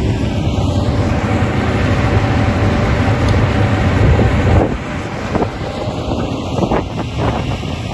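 Excavator's diesel engine running with wind buffeting the microphone. The rumble drops off about halfway through, followed by a few short knocks.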